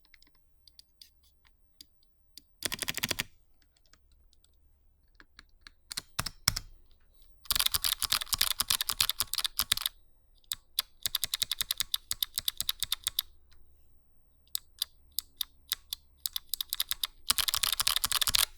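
Typing on a RAMA Works M65-A keyboard fitted with SMK second-generation white clicky switches and GMK keycaps in an aluminium case: crisp clicks with a double click, in fast runs lasting a few seconds, with pauses and single keystrokes between.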